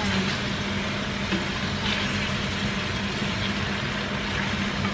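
Chicken pieces in a cream sauce sizzling and simmering in a stainless steel pot as they are stirred with a plastic spatula, over a steady low hum.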